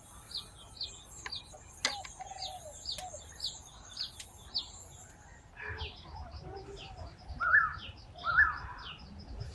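Several wild birds calling: a high short falling chirp repeated about twice a second, lower cooing notes in the first two seconds, and louder two-part calls near the end. A steady high hiss stops about halfway, and two sharp clicks come about two and three seconds in.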